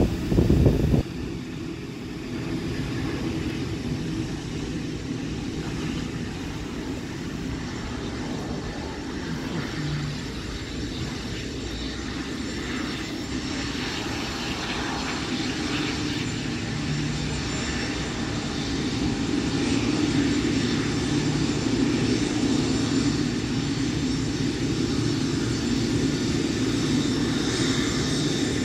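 Boeing 777-9's GE9X jet engines running at a distance, a steady rumble that grows somewhat louder in the second half. A brief loud burst of noise hits the microphone at the very start.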